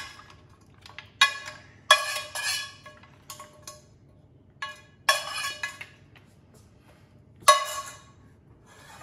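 A metal spoon scraping and knocking against a stainless steel pan, with mussel shells clattering, as cooked mussels are tipped out onto a plate. There are about four separate ringing clatters with quiet between them, and a sharp metallic clang near the end is the loudest.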